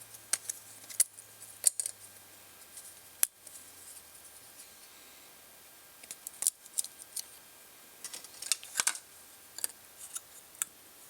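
Small wooden kit parts being pressed and snapped out of a laser-cut wooden sheet by hand: a scattered series of sharp clicks and snaps with short quiet gaps between them.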